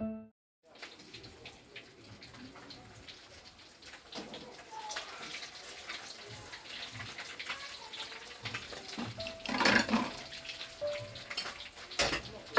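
Water running into a kitchen sink, with dishes and utensils clinking; a louder clatter about ten seconds in and a sharp knock near the end.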